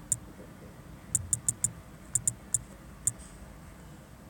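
Smartphone on-screen keyboard key-press clicks as a word is typed: about ten short, sharp ticks in quick bunches, the last one about three seconds in.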